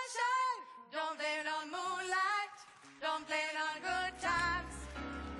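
A woman singing a pop melody on her own. About four seconds in, a band with bass joins her.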